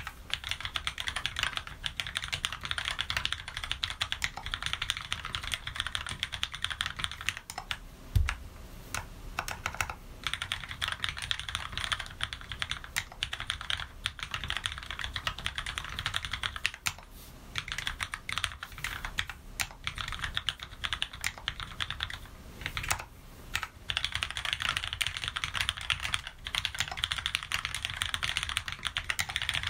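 Typing on an Anne Pro keyboard with lubed Cherry MX Red linear switches on 62 g springs and DSA Hyperfuse ABS keycaps: a fast, steady run of keystrokes with a few short pauses. About eight seconds in there is a single deeper thump.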